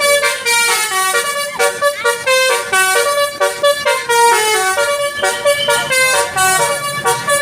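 Indonesian bus 'telolet' musical horn playing a quick tune, short notes jumping up and down in pitch one after another without pause.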